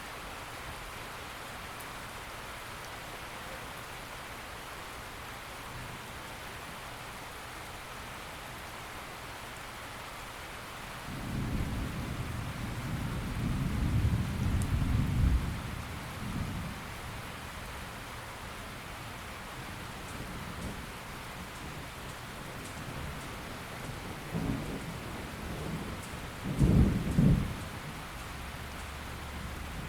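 Steady rain hissing, with a long roll of thunder starting about a third of the way in and lasting several seconds, then fainter rumbles and a short, louder clap of thunder near the end.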